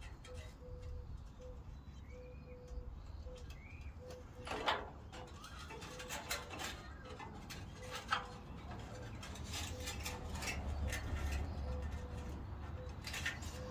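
Scattered light metallic clicks and rattles of mechanic's wire and taillight wiring being worked against a pickup's sheet-metal bed side, over a low rumble. A few faint bird chirps come early in.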